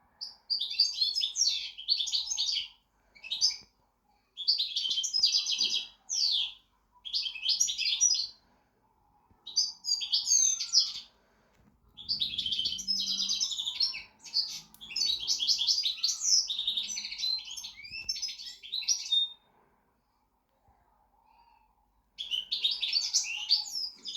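Pet goldfinch singing: a rapid, high twittering song in bouts of a few seconds with short pauses between them. The longest bout runs for about seven seconds in the middle, followed by a pause of about three seconds before a last bout.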